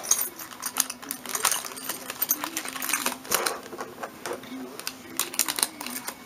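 Small metal craft charms and plastic blister packaging being handled: an irregular run of light clicks and rattles.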